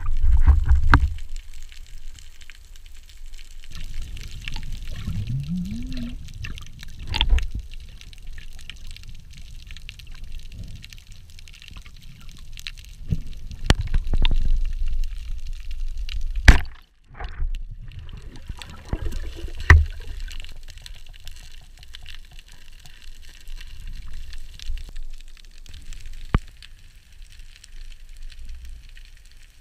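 Underwater sound picked up by an action camera in its housing: water rushing and gurgling around a freediver as he moves, loud churning at the start, then a lower steady wash with a few sharp clicks and knocks in the middle.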